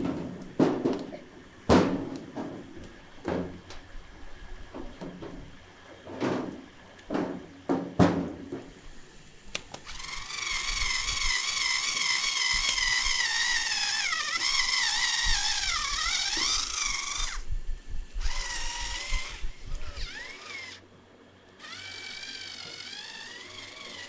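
Small cordless electric screwdriver whirring in a long run and then two shorter bursts, its pitch sagging and wavering as it works against the load. Before it, a series of sharp knocks and clanks from a crocodile carcass being handled on a steel spit frame.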